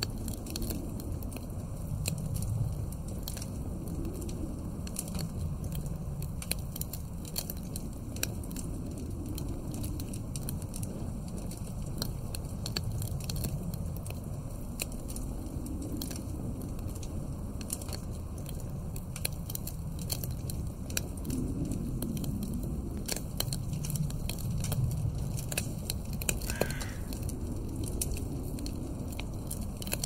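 Log fire crackling with frequent sharp pops, over a low wind that swells and fades in gusts. Near the end a brief falling squeal-like sound cuts through.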